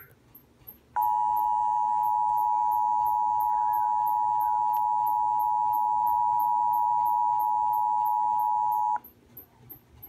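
Emergency Alert System attention signal: a steady two-tone alarm that starts about a second in, holds for about eight seconds and cuts off sharply, heard from a web audio stream through a computer's speaker.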